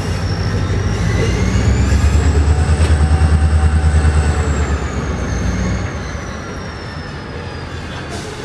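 EMD 645 diesel locomotive prime mover running loud with a fast, pulsing low beat and a thin high whine that rises and then falls. The engine sound drops off noticeably about six seconds in.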